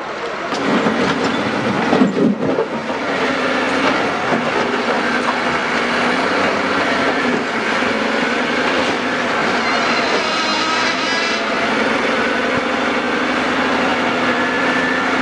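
Heavy quarry machinery running loudly and steadily, with irregular knocks throughout.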